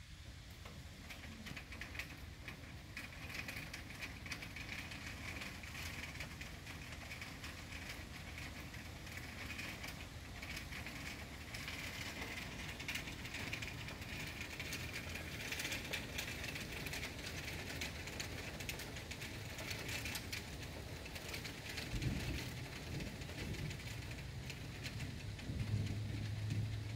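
Heavy rain pattering steadily on the trees' leaves and nearby surfaces, a dense mass of drops. A low thump comes about three-quarters of the way through.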